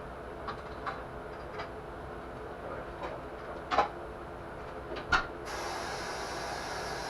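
Scattered clicks and knocks of hand tools on metal engine parts, with two louder clanks about four and five seconds in. Then a steady hiss starts abruptly.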